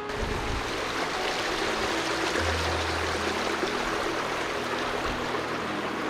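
Steady rushing of a rain-swollen creek, water running fast over rocks. The sound cuts in suddenly and then holds even throughout.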